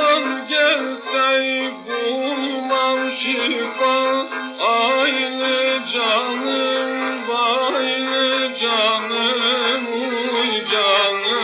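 Old Turkish song playing from a 78 rpm shellac record, in a passage without sung words: an ornamented melody with sliding notes over a steady drone. The sound is thin, with no bass and no top end.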